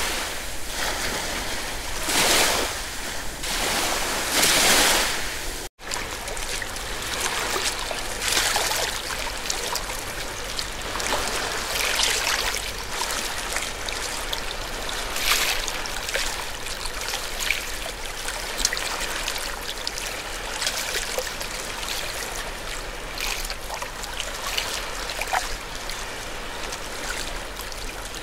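Sea waves washing in, one swell about every two seconds. After a sudden cut a few seconds in, the water goes on as a steadier rushing with many small, sharp splashes and trickles.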